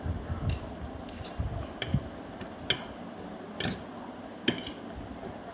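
Utensils clinking against a bowl as noodles are mixed: a series of sharp, irregular clinks.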